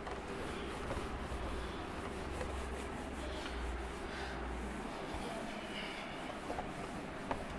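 A cloth duster wiping marker writing off a whiteboard: a faint, continuous rubbing made of repeated sweeping strokes.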